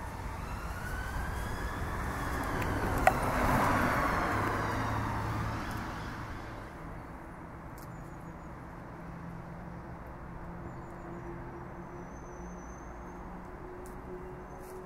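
Emergency vehicle siren wailing in slow rising and falling sweeps as the vehicle passes, swelling to its loudest a few seconds in and fading by about six seconds, with a sharp click near its peak. After that a quieter, steady low hum remains.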